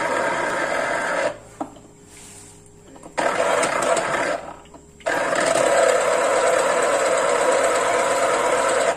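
Electric citrus juicer from a Britânia 3-in-1 kit running while squeezing fruit: its motor stops about a second in, starts again about three seconds in, pauses briefly, then runs steadily again.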